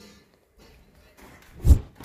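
Mostly quiet at first, then one heavy, deep thud near the end, the first of a steady run of thuds.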